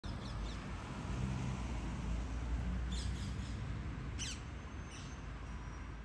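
Parakeets calling in a few short, sharp calls, the strongest a falling call about four seconds in, over the steady low rumble of street traffic.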